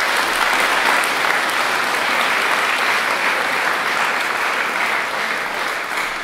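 Large audience applauding steadily, the clapping starting to die down near the end.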